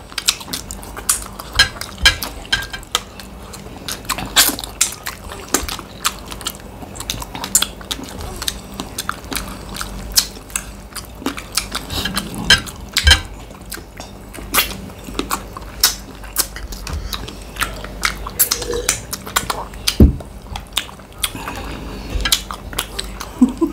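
People eating fast: frequent sharp clicks and clinks against dishes and plates, with chewing, many times throughout.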